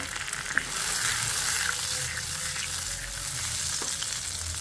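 Wet ground masala paste sizzling as it fries in hot mustard oil in an iron kadhai, stirred with a wooden spatula, with a light knock or two.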